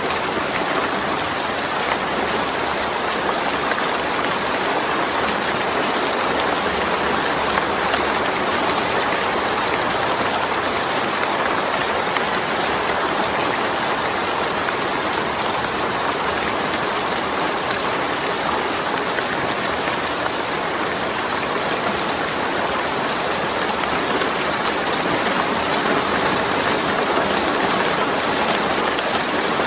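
Rain falling steadily on a zinc roof, a dense, even patter that stays constant throughout.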